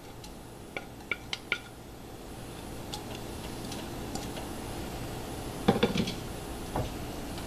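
Wooden spatula knocking and scraping against a plate and the rim of a nonstick kadai as chopped ginger, garlic and green chillies are pushed into the oil: a few light taps about a second in, and a louder cluster of knocks near six seconds.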